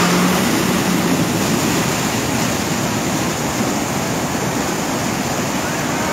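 Muddy floodwater rushing across a road, a loud, steady wash of water. An engine note rises briefly at the start, then fades under the water.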